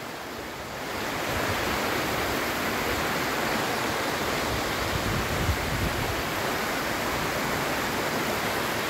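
Steady rush of shallow water pouring over the rock cascades of Dunn's River Falls. It swells a little louder about a second in, then holds.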